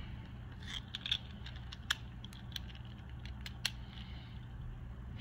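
Beyblade Micros spinning tops battling in a small plastic stadium: scattered light clicks as the tops knock against each other and the stadium walls, over a faint steady hum.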